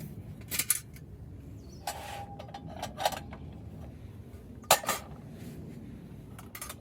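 Scattered light clinks and knocks of cooking gear and utensils being handled, about four of them, one ringing briefly like metal.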